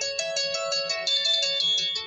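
Oppo A7 ringtone playing: a quick, high-pitched melody of short notes.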